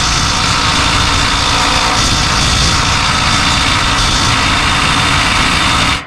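A power wrench running steadily and loudly as it spins a nut off an engine mount bolt, cutting off suddenly near the end.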